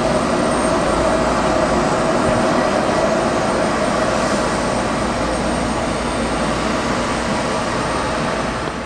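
Embraer E-Jet airliner taxiing past, its twin turbofan engines running at steady taxi power: an even roar with a thin high whine on top.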